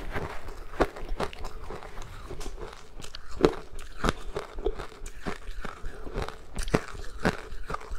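Matcha-powdered ice being bitten and chewed: a run of sharp, irregular crunches, several a second, with the loudest about halfway through and near the end.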